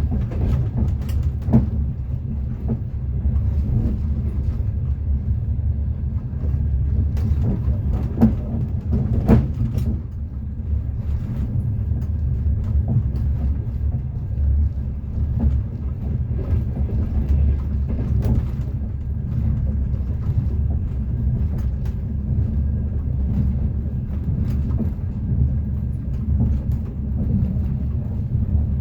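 Moving train heard from inside a carriage: a steady low rumble of the running gear, with the wheels knocking now and then over rail joints.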